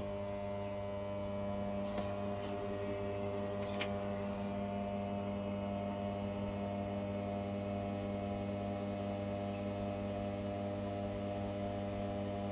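Steady electrical mains hum that starts abruptly, a low buzz with many overtones and no motor spin-up or whine. Two faint clicks come about two and four seconds in.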